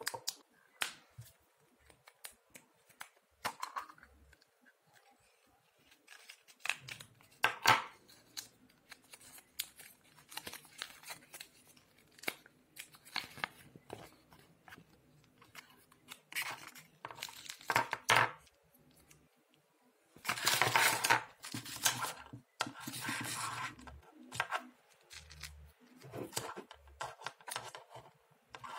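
Hands handling a plastic surprise-egg capsule, its paper sheets and the small plastic toy inside: scattered clicks and taps of plastic, with a few seconds of dense crinkling and tearing about twenty seconds in.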